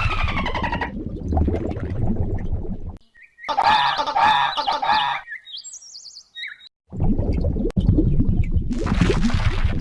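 Animal calls with bird-like chirps and squawks, in several short clips cut one after another: a wavering pitched call in the middle and a few short high chirps after it, between stretches of low rough noise.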